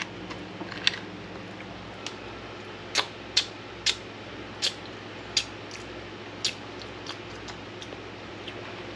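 A string of sharp, light clicks and taps of hard objects knocking, coming irregularly about once or twice a second, over a low steady hum.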